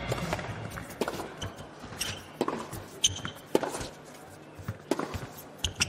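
Tennis ball struck by rackets and bouncing on an indoor hard court during a rally: a series of sharp, separate pops roughly every half second to a second.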